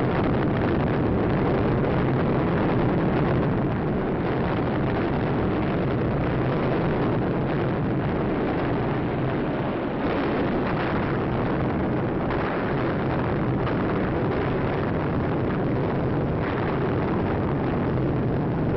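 Continuous heavy rumble of a wartime newsreel's bombing sound-effects track, mixing bomber engine drone with distant bomb bursts, with a few brief swells near the middle and toward the end.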